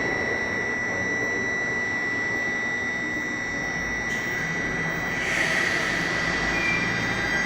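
Seoul Subway Line 2 electric train with Dawonsys propulsion equipment standing at the platform with its doors shut: a steady high whine over a running hum. About five seconds in, the noise swells as the train starts to pull away.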